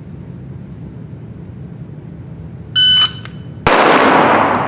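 AMG Lab Commander shot timer beeping for about a third of a second, then a little under a second later a single loud pistol shot that echoes through the indoor range, with a light click near the end. The gap between beep and shot is a 0.92-second draw from the holster.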